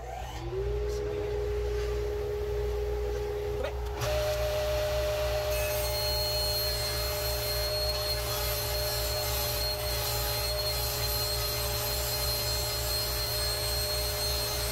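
A two-stage dust collector and a table saw start one after the other. A motor comes up to speed about half a second in, a second, higher-pitched motor joins about four seconds in, and both then run steadily.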